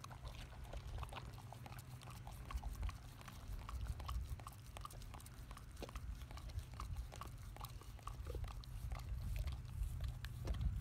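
Boxer-mix dogs chewing raw salmon heads: irregular wet crunching and biting through head bone and cartilage, several bites a second. A low, steady rumble runs underneath.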